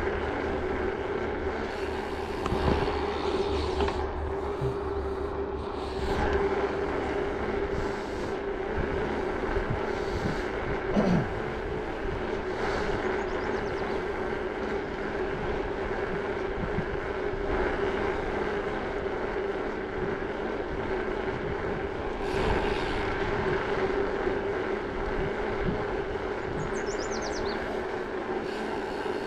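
Bicycle rolling along a paved road: steady tyre noise and wind with a constant hum, and a brief louder bump about eleven seconds in.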